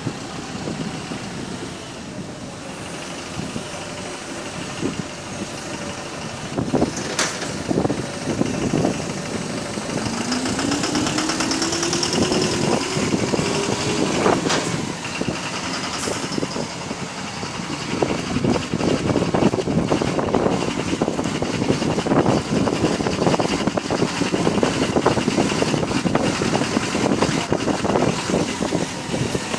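Bus engine running with a loud, rapid knocking, the sound of a worn connecting-rod bearing (rod knock). A whine rises in pitch for a few seconds near the middle, and the knocking gets heavier in the second half.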